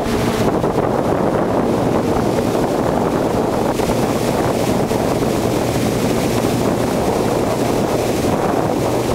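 Headwind buffeting the microphone at the bow of a small motorboat under way, over the steady drone of the boat's motor and water rushing along the hull.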